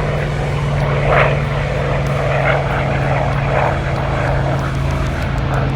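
P-40 Warhawk's piston engine and propeller droning steadily in flight.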